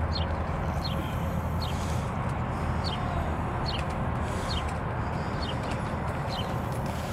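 A horse walking on a gravel driveway, its hooves crunching faintly, under a steady low rumble. A bird repeats a short falling chirp about once a second.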